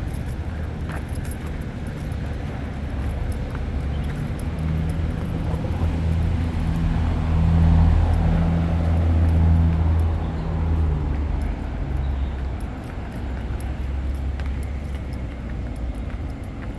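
Low engine hum of a passing motor vehicle, swelling to its loudest about halfway through and then fading away, over a steady outdoor background.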